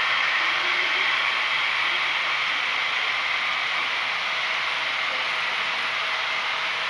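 HO-scale model freight cars rolling past close by: a steady, high whirring hiss of small metal wheels on the track, easing off slightly as the train moves on.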